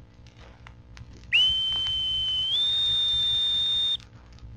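Boatswain's pipe sounded over a warship's announcing system: a single held whistle that swoops up into a steady note, steps up to a slightly higher note about a second later, and cuts off abruptly, with loudspeaker hiss under it. It is the call that signals a shipboard announcement is about to be made.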